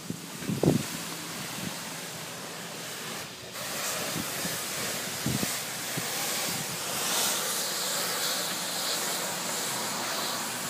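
Self-service car-wash pressure wand spraying foam onto the side of a bus: a steady hiss that breaks off briefly about three seconds in, then comes back fuller.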